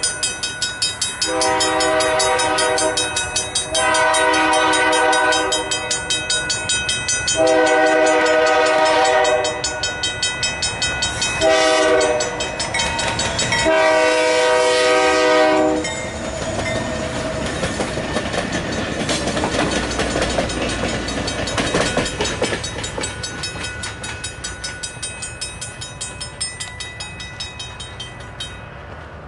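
Grade-crossing bell ringing rapidly and steadily while a BNSF diesel locomotive's air horn sounds five chord blasts, three long, one short, and a final long one, as it approaches the crossing. The locomotive and train then pass with a rumble of engine and wheels that swells and fades, and the bell stops shortly before the end.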